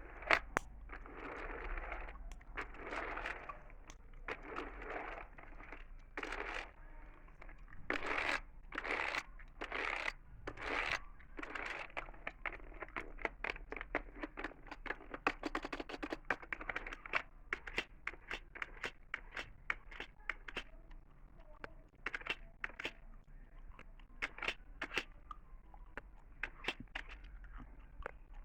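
Close-miked gum chewing with crackly mouth sounds, mixed with sharp clicks of computer keys. The sounds come irregularly, with a run of short bursts about once a second near the middle.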